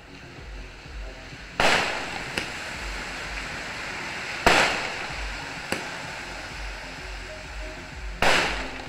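Aerial fireworks bursting: three loud booms about three seconds apart, each trailing off in a long echo, with a smaller sharp crack shortly after the first two.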